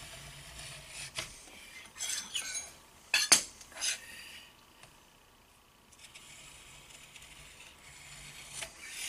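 Tool-steel knife blank sliding and clinking on a granite surface plate while a line is scribed along it with a height gauge's scriber. A handful of short scrapes and clinks, the loudest a little past three seconds in, then a faint scraping toward the end.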